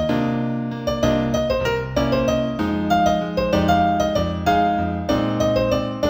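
Solo piano playing a new-age instrumental in E minor, with single melody notes struck over held bass chords.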